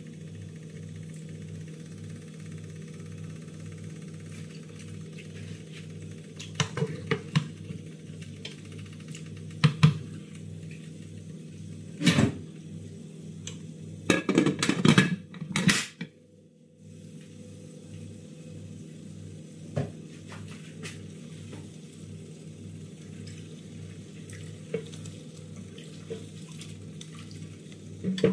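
Scattered knocks and clatters of cooking utensils against large metal pots: a wooden spoon on an aluminium pot and its lid being handled, with the loudest run of clatter about halfway through. A steady low hum runs underneath.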